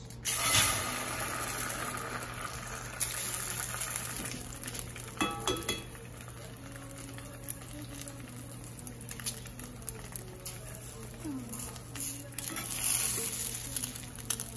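An egg dropping into hot oil in a cast-iron skillet, starting a sudden loud sizzle about a quarter second in. The frying hiss then settles and runs on steadily, with a few light clicks around the middle.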